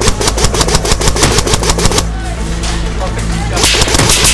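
Airsoft electric rifle, a Classic Army DT-4 double-barrel AEG, firing rapid full-auto strings of about ten shots a second: one for about two seconds at the start and another near the end.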